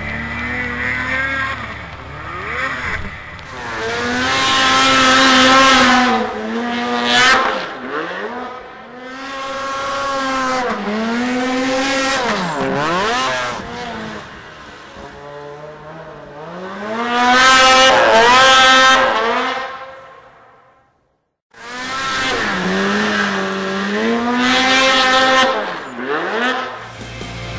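Two-stroke snowmobile engine revving hard and easing off over and over as the sled is ridden, its pitch rising and falling with each burst of throttle. The sound cuts out briefly about two-thirds of the way through, then picks up again.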